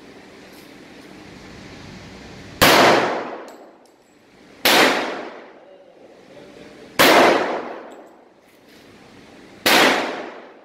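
Four handgun shots fired one at a time, about two to two and a half seconds apart, each ringing out and echoing for about a second before dying away.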